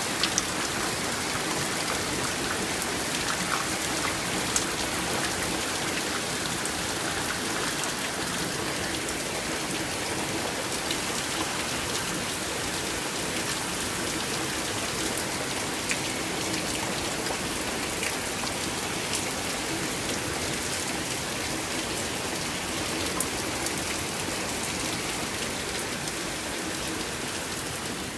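Heavy rain pouring down in a sudden downpour, a dense steady hiss with scattered sharper drop hits.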